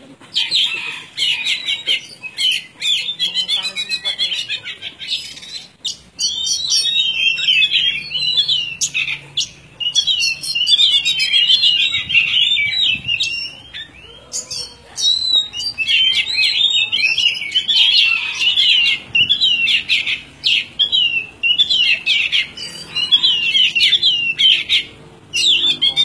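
Oriental magpie-robin (kacer) in full, vigorous song (gacor): long runs of rapid, varied, high warbling phrases, broken by a few brief pauses.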